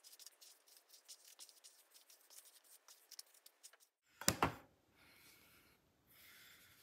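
Bristles of a paddle hairbrush raking through long hair in quick, scratchy strokes. About four seconds in there is a single sharp thump, followed by a soft rustle of hands running through the hair.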